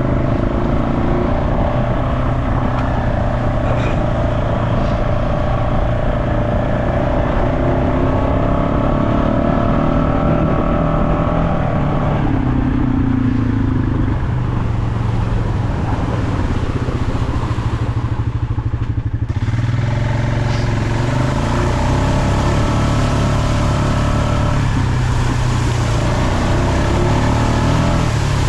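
Off-road vehicle engine running under load, its pitch shifting as the throttle changes. About two-thirds of the way through it briefly eases off, then picks up again.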